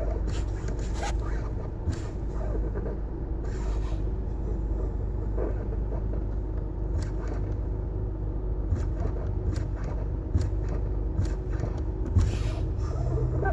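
Car in motion with a steady low rumble and short scraping noises at irregular moments from its brakes.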